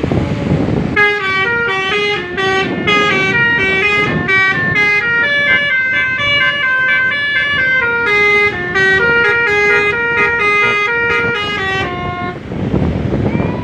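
Basuri multi-tone telolet bus horn playing a long stepped melody, from about a second in until near the end, each note a steady horn tone changing pitch in turn.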